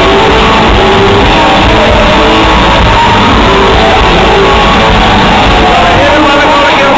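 Live rock band playing loud, with electric guitars and drums, heard from within the audience of a concert hall.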